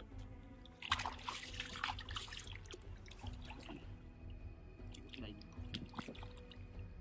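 Hands sloshing in shallow muddy water and scooping up wet mud, with irregular splashing and dripping. The splashing is strongest about a second in.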